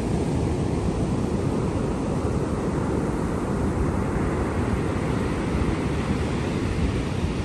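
Sea surf: a steady low rush of waves with no breaks, the hiss thinning a little midway and filling in again toward the end.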